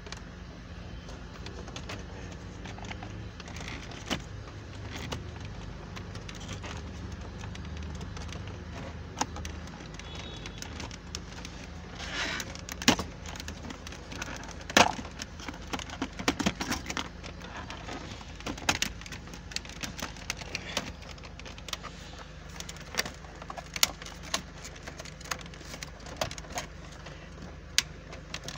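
Plastic centre-console trim of a Land Rover being pried and worked loose by hand: scattered sharp clicks, knocks and rattles, busiest about halfway through, over a steady low hum.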